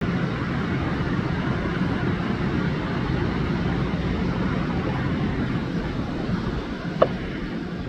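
Steady background rumble with a low hum, and one brief short tone about seven seconds in.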